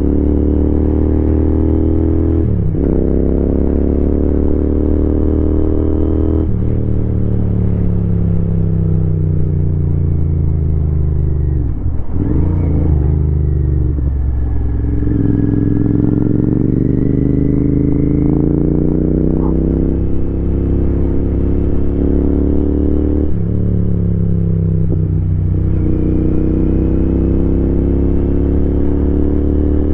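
Royal Enfield Continental GT 650's 648 cc parallel-twin engine and exhaust while riding. The engine note first sinks as the bike slows, then breaks briefly about twelve seconds in. After that it climbs steadily in a long pull, with two quick gear changes near the end.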